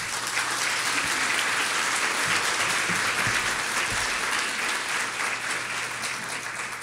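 Audience applauding: many people clapping in a steady, dense patter that begins to die down near the end.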